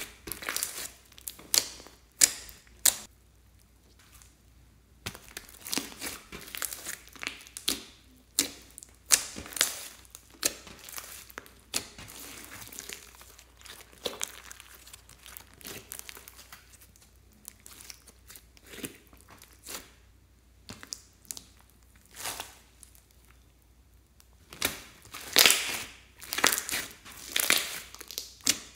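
Hands squeezing, stretching and pressing glossy slime mixed with foam beads: sticky crackling and clicking in irregular bursts with short quiet gaps, loudest near the end.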